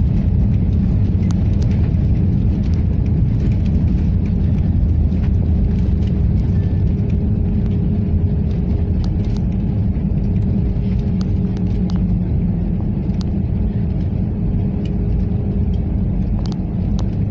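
Cabin noise of an Airbus A320-family airliner rolling along the runway after landing: a steady low rumble of engines and wheels that eases slightly as the plane slows, with occasional faint ticks and rattles.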